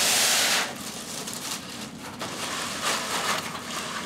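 White foam packing scraping and rubbing as a board is slid out of it, loudest in a rasping slide over the first half-second, then quieter rustling and crinkling of plastic wrap with a few small clicks.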